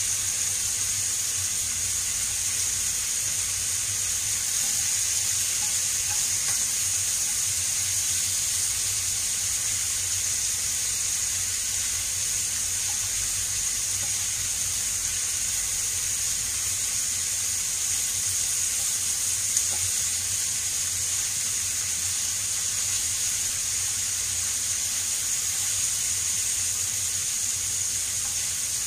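Beef ribs and sliced onion frying in oil in a pan, a steady sizzle, with one brief click about two-thirds of the way through.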